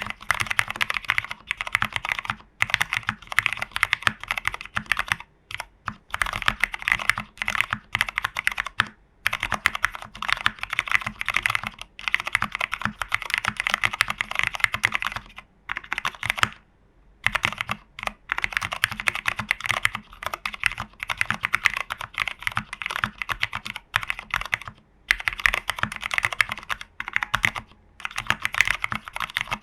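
Mechanical keyboard being typed on in quick runs of keystrokes: a TU40 plastic-case board built plateless, with case foam, PCB foam and a tape mod, fitted with Cherry Hyperglide Black linear switches. Short pauses break the typing, the longest about a second and a half some 16 seconds in.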